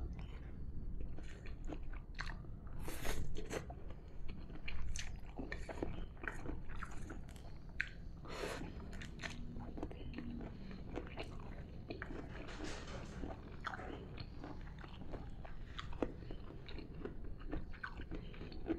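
A person chewing and biting mouthfuls of fried instant noodles with sliced bitter melon, with many short crisp crunches scattered throughout.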